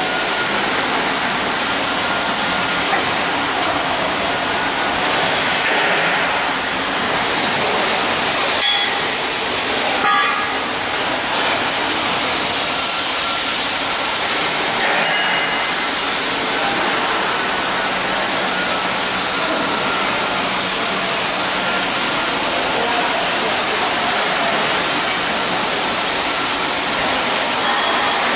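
Steady, loud workshop machinery noise, a dense even hiss-like drone, with a couple of light knocks about nine and ten seconds in.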